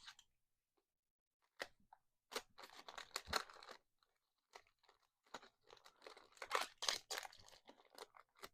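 Faint crinkling and tearing of a trading-card pack's wrapper as it is ripped open and handled, in irregular bursts of crackle.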